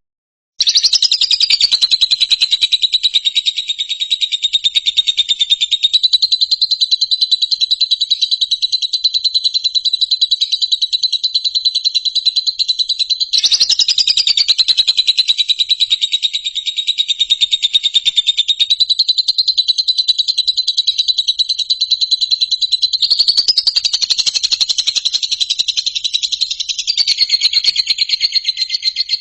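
A loud, continuous high-pitched trill: a very fast train of pulses held near one pitch, wavering slightly. It breaks off and starts again about halfway through.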